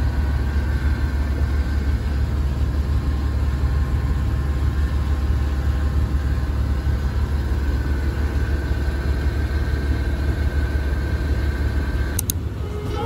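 An engine running steadily with a deep hum, cutting off about twelve seconds in.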